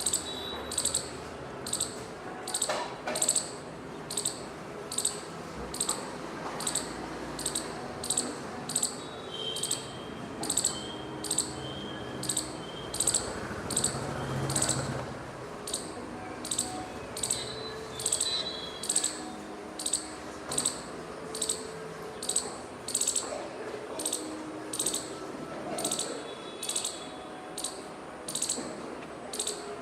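A squirrel giving a long run of sharp, high-pitched chip calls, evenly repeated about three every two seconds. It is a steady alarm-style calling.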